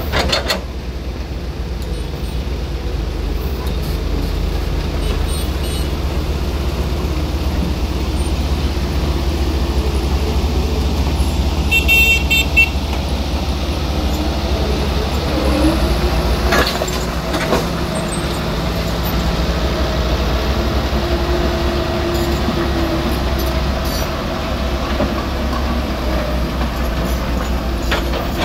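Diesel engine of a tracked excavator running under load, its pitch rising and falling as the boom and bucket work, with scattered knocks of soil and broken asphalt. A short high-pitched tone sounds about twelve seconds in.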